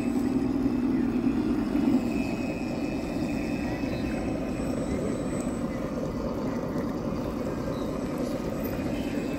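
A 1/10-scale RC pontoon boat's outboard motor running at speed with a steady hum. It is loudest for the first couple of seconds, then a little fainter as the boat pulls away.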